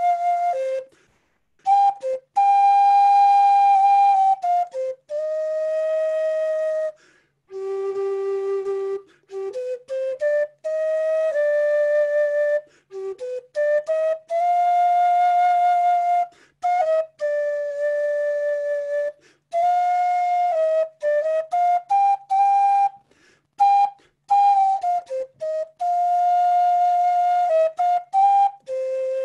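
Wooden end-blown flute played solo in a slow improvised melody: long held notes broken by short breath pauses, with quick runs of short notes between some phrases.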